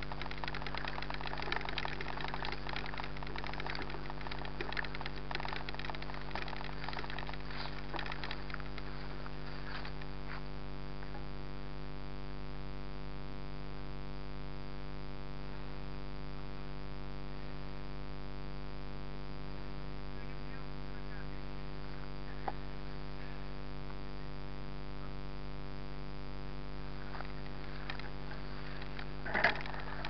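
Mountain bike rolling along a grassy dirt trail, rattling and clattering over the rough ground for the first ten seconds, then running smoother, with a sharp knock near the end. A steady hum runs underneath.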